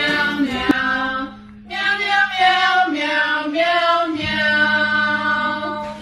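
A voice singing a melody in held notes over a steady low accompanying tone, with a brief pause about a second and a half in.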